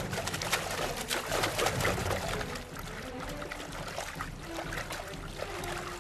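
Water splashing as men jump from small boats into a river, busiest in the first two seconds or so, then a quieter, steadier sound of moving water.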